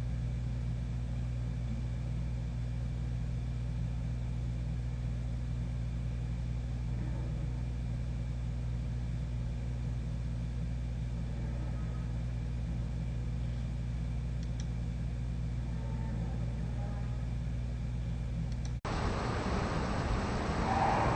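A steady low rumbling drone made of several unchanging low tones, the unexplained sound the recordist heard over the city at night. About nineteen seconds in it cuts abruptly to a louder, rougher noise.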